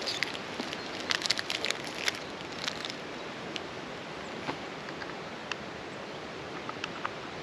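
Crinkling and crackling of a flapjack wrapper being handled for the first few seconds, thinning to scattered single clicks over a steady background rush.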